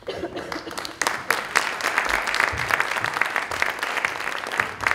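Audience applauding, many hands clapping; it grows louder about a second in.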